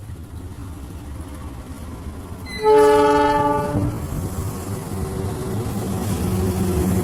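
KAI CC206 diesel-electric locomotive sounding one horn blast of about a second, a little under halfway through. Under and after it the locomotive's engine runs with a low rumble that slowly grows louder.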